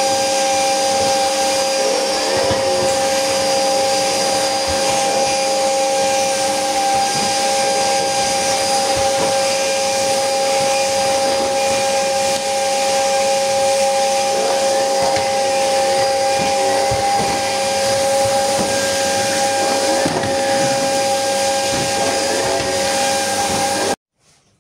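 Canister vacuum cleaner running steadily, its floor nozzle pushed over a hard floor, with a constant high whine over the motor's rushing noise. The sound cuts off suddenly just before the end.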